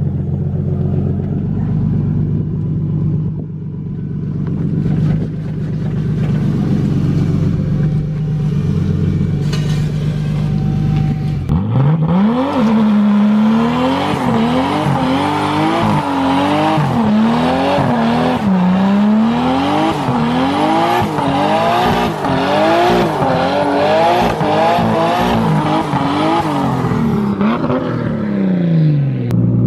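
Toyota 2JZ inline-six in a Nissan S13 idling, then about twelve seconds in revving hard and swinging up and down in pitch again and again during a driveway burnout. The revs drop back near the end.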